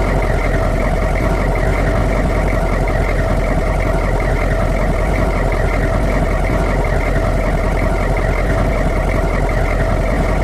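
Humvee's V8 diesel engine idling steadily, with an even, rapid low pulse that does not change.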